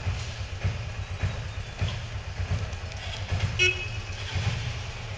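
Street traffic with a steady low rumble and one short vehicle horn beep about three and a half seconds in.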